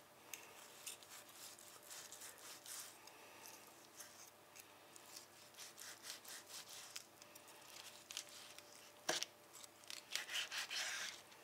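Knife sawing back and forth through the peppercorn crust of a cooked bone-in ribeye steak, a faint rasping of repeated strokes. There is one sharp click about nine seconds in, and the strokes grow louder near the end.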